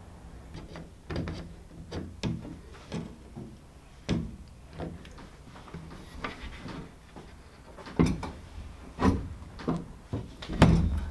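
Hinged tube-frame solar panel rack being handled and swung down onto its base frame: a run of irregular knocks and clunks, the loudest ones in the last few seconds.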